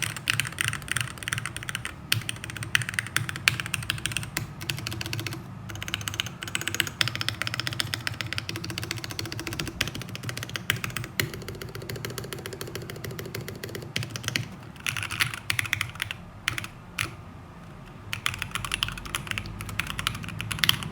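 Rapid typing on a custom mechanical keyboard: Jwick Ultimate Black linear switches on a brass plate under PBT Cherry-profile keycaps, in a long run of quick keystrokes with a brief pause a little past the middle.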